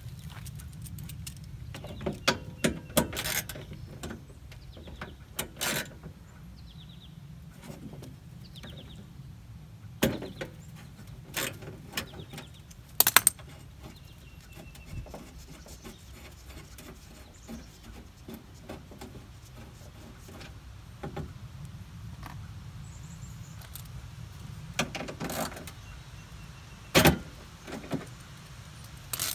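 Scattered clicks, clinks and rattles of hands working inside a stripped car door, pulling wiring-harness clips off the door's sheet-metal frame, with a steady low hum underneath.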